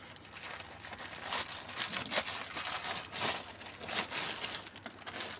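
Plastic wrapping crinkling and rustling in irregular spurts as it is untied and pulled open from around a motorcycle body panel.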